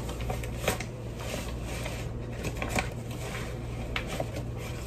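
Plastic zip-top bag of flour rustling and crinkling as a measuring cup is scooped into it, with several short clicks and taps.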